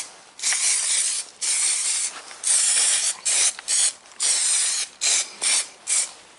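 Rust treatment being sprayed into the cleaned-up panel area in a series of hissing bursts. The first few bursts last over half a second; the later ones are short, quick squirts.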